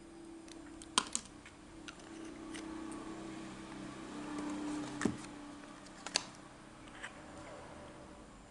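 A handful of small sharp clicks and taps at irregular intervals, the loudest about a second in and about five seconds in, over a faint steady low hum.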